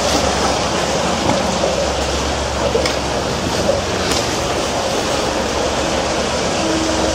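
Steady rush of water spraying and splashing against the steel hull of a wide-beam barge. A faint steady hum joins about six seconds in.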